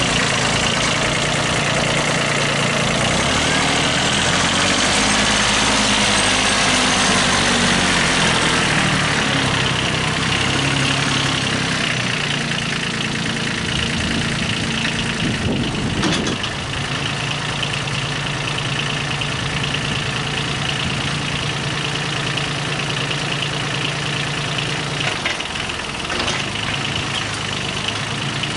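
Kubota B8200 compact tractor's three-cylinder diesel engine running while the tractor is driven, its note rising and falling with the throttle in the first part. A short clunk about halfway, then the engine runs at a steady idle.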